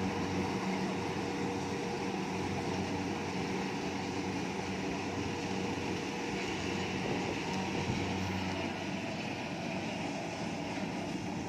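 Kubota rice combine harvester's diesel engine running steadily while harvesting, with a constant machine drone and no change in pace.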